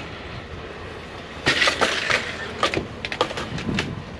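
A run of sharp clattering knocks, starting about a second and a half in, as pieces of tubing and other scrap are handled and dropped against each other on the grass.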